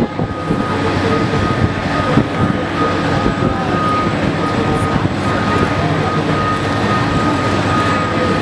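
Aircraft towing tractor's engine running steadily under load as it pulls a Boeing 747-8 across the apron, a low rumble with a steady high-pitched whine over it.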